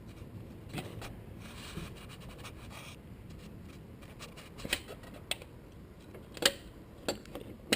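Hands unplugging the alternator's plastic wiring connector: faint scratching and scraping, then several sharp clicks in the second half.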